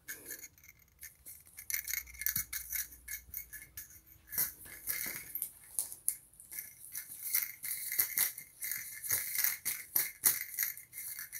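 A cat's toy ball with a rattle inside, shaken and rolled as the cat bats and grabs it: rapid, irregular rattling with a faint bell-like ring.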